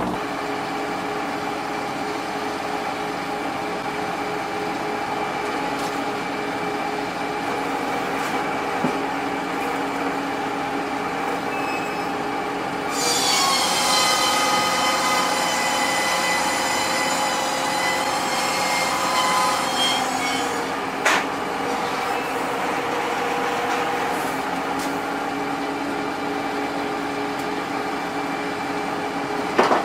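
Sawmill machinery running with a steady drone. For about seven seconds in the middle a high-pitched squealing whine rises over it, like a saw blade running through a log, and a couple of sharp knocks follow later.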